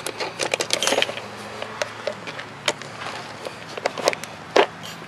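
Irregular clicks and light metallic clinks of a hand tool working on a blender motor inside its plastic base: a quick flurry in the first second, then scattered single clicks, the loudest near the end.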